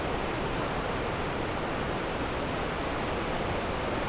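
Steady rushing of the Niagara River's class 6 whitewater rapids, an even, unbroken wall of water noise.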